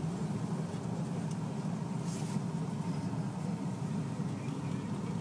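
Steady road and engine noise inside the cabin of a moving car, a low, even rumble.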